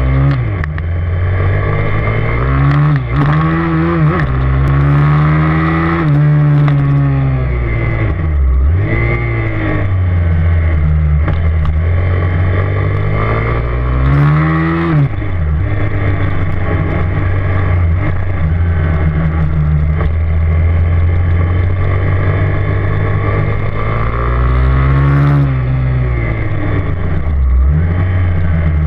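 Piranha 160cc pit bike's single-cylinder four-stroke engine running through a BBR aftermarket exhaust while being ridden. The revs climb and drop several times as the throttle is opened and closed.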